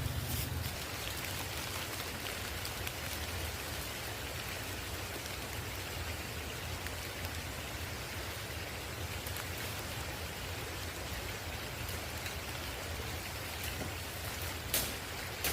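Steady rain falling, with a couple of sharp taps near the end.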